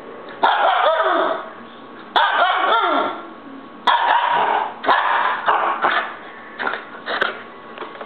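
Siberian husky puppy throwing a fit: a string of loud barks and yowls, about seven outbursts, some sliding up and down in pitch.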